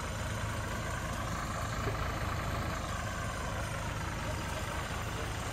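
Diesel engine of a borewell drilling rig truck idling steadily, a low, even rumble.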